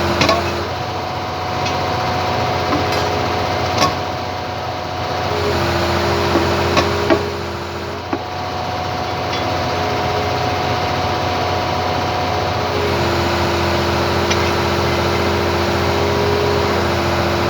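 Hitachi excavator's diesel engine running steadily, with a hum from the machine that steps between two pitches every few seconds. A few sharp metallic knocks, bunched in the first half.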